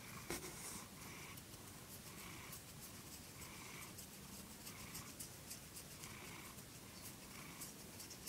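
Domestic calico cat purring faintly close to the microphone, the purr swelling and fading in a slow even rhythm with her breathing, with light rustling over it.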